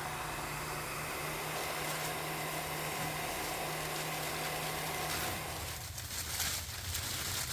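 A steady machine hum, like a small motor running, over an even hiss, easing off near the end.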